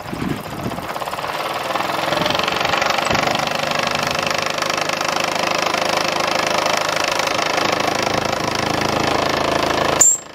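Mamod SP4 toy steam engine running fast, its small oscillating cylinder giving a rapid, steady chuffing rattle that picks up over the first couple of seconds and then holds. Near the end there is a short, sharp high sound.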